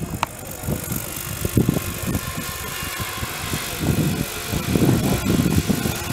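Wind buffeting the microphone in irregular gusts, with the steady drone of a distant radio-controlled competition helicopter's rotor and motor faintly behind it. A brief high chirp sounds just after the start.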